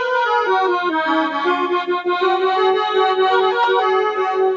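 Big Fun 37-key mini electronic keyboard playing a melody on one of its eight built-in tones, with quick higher notes over held lower notes.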